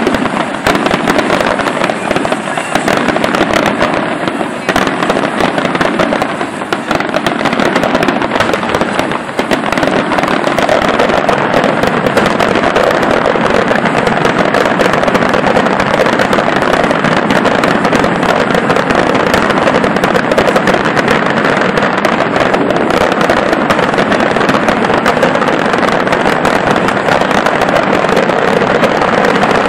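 Aerial fireworks display: a dense run of bangs and crackles from bursting shells. It comes thicker and more continuous from about ten seconds in.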